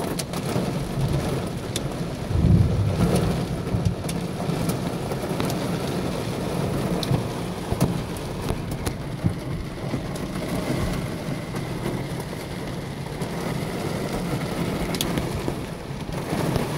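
Heavy downpour with hail in a severe thunderstorm: a steady hiss of rain with scattered sharp ticks of hailstones. A low rumble of thunder swells about two seconds in.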